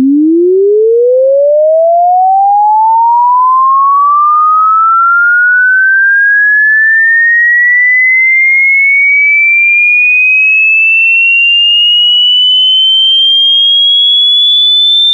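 A single pure electronic tone, a sine-wave sweep, gliding steadily and smoothly upward in pitch from a low hum to a high whistle at an even, loud level.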